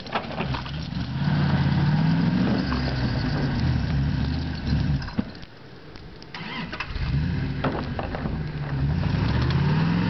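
Pickup truck engine revving up and down repeatedly as it spins its wheels in deep snow, trying to drive out of a ditch. The revs ease off about halfway through, then climb and fall again.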